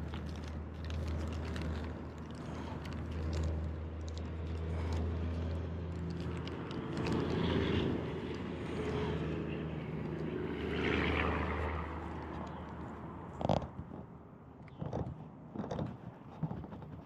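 Steady low engine drone, swelling twice and fading away about twelve seconds in. A few sharp clicks and knocks follow near the end.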